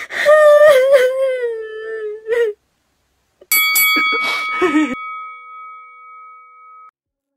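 A woman crying in a long, high, wailing sob that slowly falls in pitch. About three and a half seconds in, a click and a bell-like chime, the sound effect of a subscribe button being pressed, ring out and fade away.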